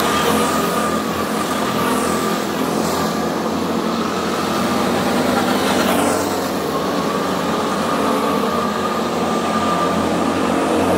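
Small go-kart engines running as a group of karts drives past close by, then carries on around the track, with the whine of passing karts falling in pitch several times.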